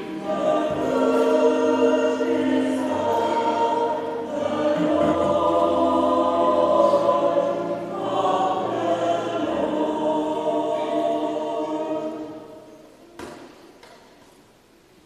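Church choir singing a hymn over held bass notes. The singing ends and fades out about twelve seconds in, and a single knock follows a second later.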